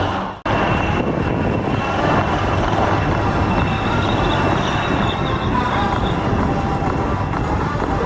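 HAL Dhruv helicopters flying: steady rotor and turbine noise with a faint high whine. The sound cuts out briefly about half a second in, then resumes.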